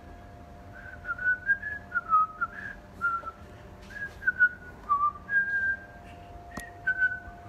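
A person whistling a tune in short pure notes that step up and down in pitch, over a faint steady hum, with a single sharp click near the end.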